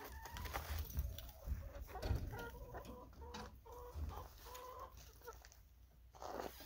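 Hens clucking over a dish of feed, a run of short, repeated pitched calls. A few low thumps come in the first couple of seconds.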